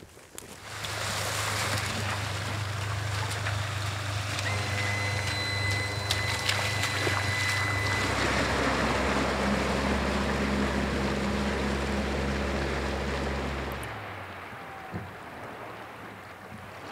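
Jet boat engine running steadily, its note shifting lower and stronger about eight seconds in as the boat pulls away from the bank across the river, then falling away about fourteen seconds in.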